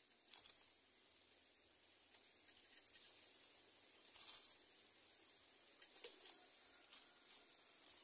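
Faint, short scratchy sounds from greater coucal nestlings shifting in a nest of dry leaves: about half a dozen brief bursts, the loudest a little past the middle, with several close together near the end.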